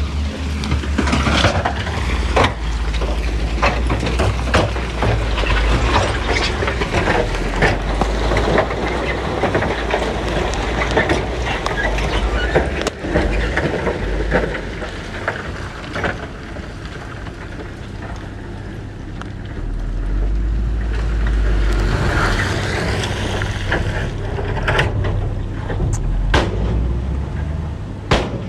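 Heavy diesel earthmoving machinery running, with frequent knocks and clatter of rocks being dumped and pushed. The engine gets louder about twenty seconds in.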